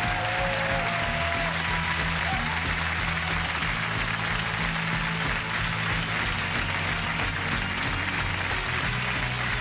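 Studio audience applauding over the closing theme music of a TV panel show.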